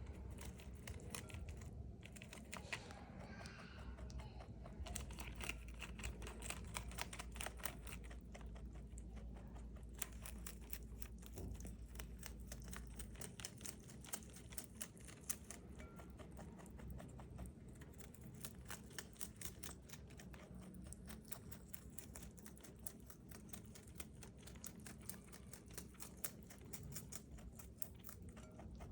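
Rabbit chewing crisp bok choy leaves and stalks: rapid, steady crunching close to the microphone, over a low hum.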